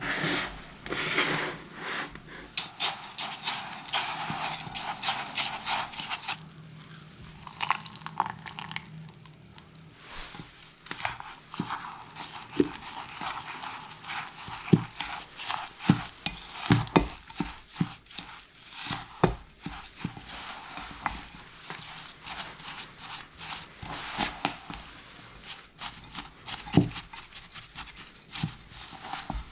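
A fork stirring streusel ingredients in a glass measuring jug. First a gritty, rasping scrape through sugar, then slower mixing of flour and melted butter into crumbs, with many sharp knocks of the fork against the glass.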